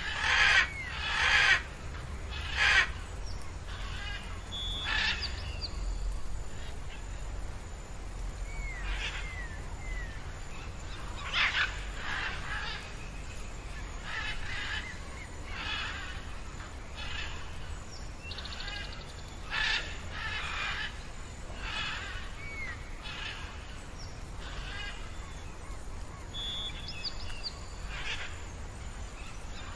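Birds calling: loud, rough calls come at irregular intervals, every one to a few seconds, with short thin curling whistles between them, over a low steady rumble.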